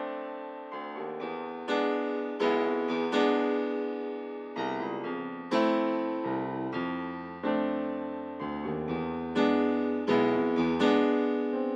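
Slow, gentle piano music: single notes and chords struck one after another, each left to ring and fade.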